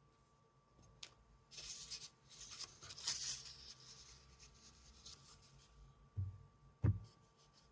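Paper crackling and tearing for about two seconds, then two soft thuds near the end.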